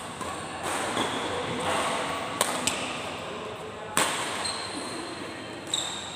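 Badminton rally in a large echoing hall: three sharp racket strikes on the shuttlecock, about a second and a half apart, with sneakers squeaking on the court and voices in the background.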